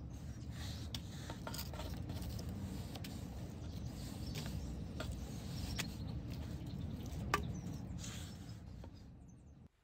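Outdoor ambience: a steady low rumble with a few faint, short chirps or clicks, fading out near the end.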